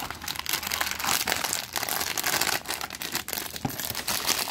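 Plastic food packaging crinkling and a cardboard box rustling as a frozen egg-roll package is handled and pulled out. The crackling runs on with many small sharp crackles.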